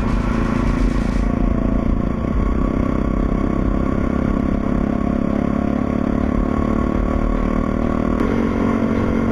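KTM RC motorcycle running at a steady pace under road and wind noise, its engine note shifting slightly about eight seconds in.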